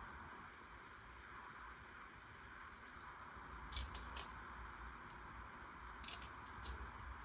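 Light plastic clicks and taps of LEGO Technic pieces being handled and fitted together, a small cluster about four seconds in and a few more near six seconds, over a faint steady hiss.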